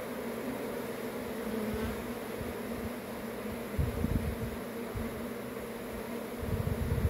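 A swarm of honeybees buzzing steadily, a low even hum with a higher tone above it. Low rumbling thumps on the microphone come about four seconds in and again near the end.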